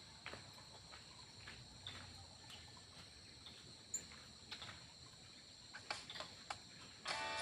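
Faint aviary ambience: scattered short bird chirps and clicks over a steady high-pitched drone.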